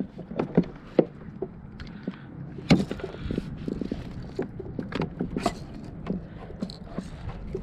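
Irregular knocks and clunks of fishing gear being handled aboard a boat, over a steady low hum.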